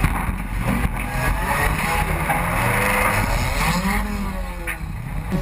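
Several demolition derby cars' engines revving hard, their pitch rising and falling as the cars accelerate and back off.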